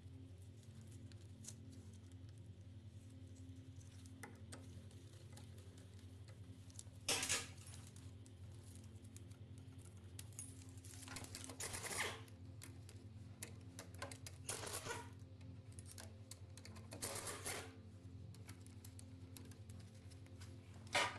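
Metal parts and tools clinking and scraping against each other in a handful of short bursts, about five over the stretch, over a steady low hum.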